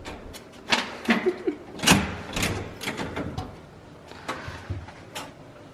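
A string of about eight sharp clicks and knocks, unevenly spaced, with a brief murmur of voice about a second in.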